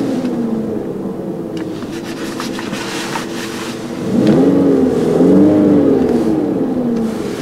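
2008 Volkswagen Passat 1.8 TSI's turbocharged four-cylinder petrol engine, in park, dropping back to idle, then blipped twice about four seconds in, the pitch rising and falling back to idle each time.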